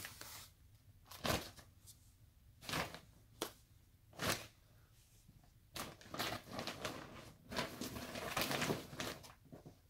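A bag crinkling and rustling as skeins of yarn are packed back into it by hand. There are a few sharp crackles, then a longer stretch of continuous rustling near the end.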